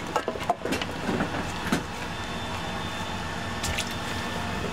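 Raw thin-sliced potatoes being tipped into a stainless steel tray and moved about by gloved hands: a few sharp clatters and rustles in the first two seconds, then a quiet slide of slices over a steady background hum.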